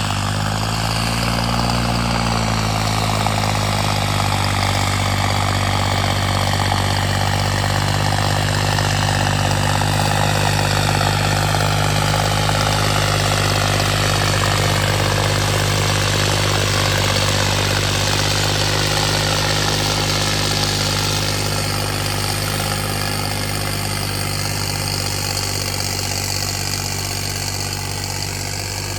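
John Deere 5210 tractor's 50 hp engine running steadily at working revs. A fainter higher whine slowly drops in pitch over the first twenty seconds.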